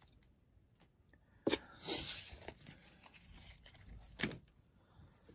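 Pokémon trading cards and a foil booster pack being handled on a wooden table: a sharp tap about one and a half seconds in, a brief rustle just after, small scrapes, and another tap near four seconds.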